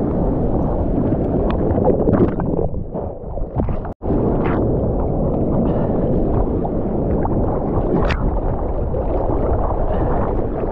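Rushing water and wind buffeting a GoPro in the surf: a dense, low, steady rumble with short sharper splashes, cutting out for an instant about four seconds in.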